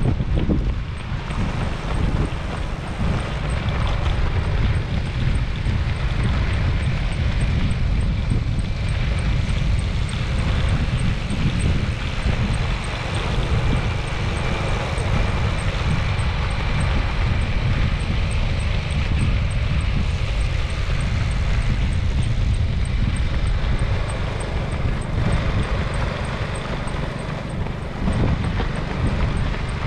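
Steady rumble of a moving vehicle, mixed with wind buffeting the microphone.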